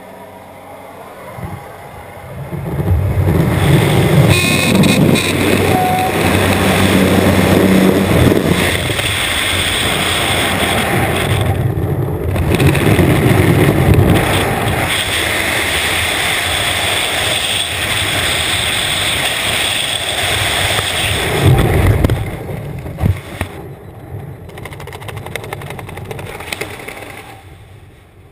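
Aircraft noise at the open jump door, then wind rushing loudly over a helmet camera's microphone in skydiving freefall, building over the first few seconds after exit. About 22 seconds in it drops sharply to a much quieter wind as the parachute opens and the jumper is under canopy.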